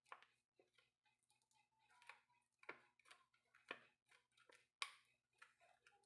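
Faint, irregular light clicks and taps of small hand repair tools on a device, over a faint steady hum.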